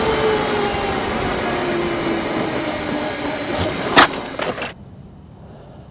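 Wind and road noise while riding a Gotway Monster Pro electric unicycle, with a faint motor whine slowly falling in pitch. About four seconds in comes a sharp, loud crash and a few clattering knocks as the underinflated tyre wobbles in a turn and the unicycle goes down, after which the riding noise stops.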